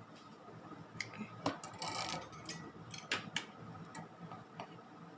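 Faint, irregular light clicks and taps of small tools on a remote control's circuit board while its infrared LED is being desoldered, with a brief flurry of small scraping clicks about two seconds in.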